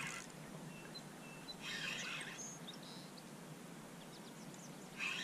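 Fishing reel being cranked in short spurts under the load of a hooked catfish, one burst of winding about two seconds in and another near the end. Faint bird chirps in between.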